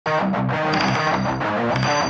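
Intro music with guitar, starting abruptly.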